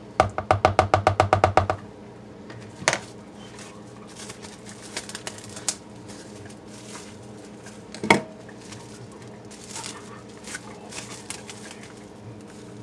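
Handling a plastic tub of hot process soap paste and covering it with cling wrap: a quick run of about a dozen taps just after the start, two single sharp knocks, then light crinkling of plastic wrap near the end.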